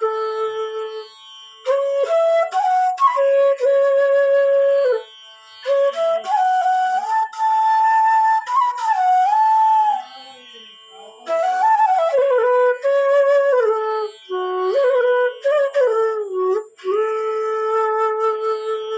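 Bass bansuri (bamboo transverse flute) in A played in melodic phrases with slides between notes, breaking off briefly between phrases, over a tanpura drone in A.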